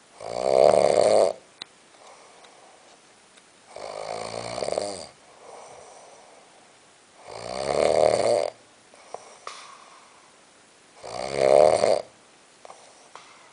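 Snoring: four loud snores, one about every three and a half seconds, each lasting a little over a second, with much fainter breathing between them.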